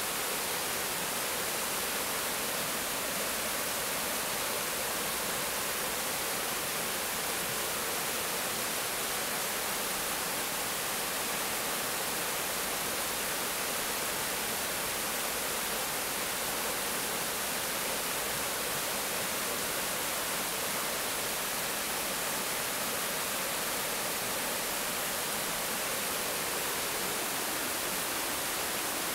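Water rushing down a rocky river cascade: a steady, even hiss.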